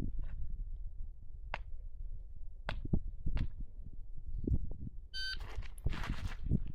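A few scattered clicks and knocks, then a shot-timer beep about five seconds in, followed at once by the first shots from a 9mm Canik Mete SFT Pro pistol, the start of a timed qualification string.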